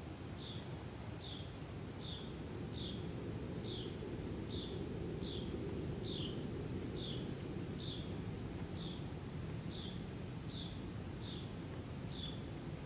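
A small bird repeating a single short call note, falling slightly in pitch, a little more than once a second, over a steady low background rumble.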